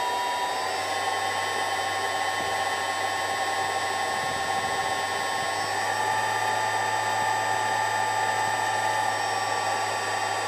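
Spindle motor running on an HY variable frequency drive, with a steady whine over a fan-like hiss. The pitch steps up twice, once about half a second in and again near the middle, as the drive's output frequency is raised in 10 Hz steps from 90 to 110 Hz.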